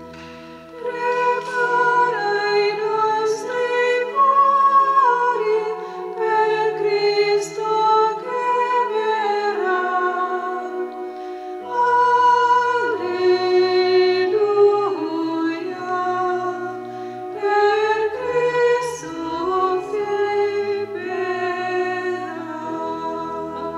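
A church hymn, sung by voices over held accompanying chords that change every second or so; the music of the communion rite.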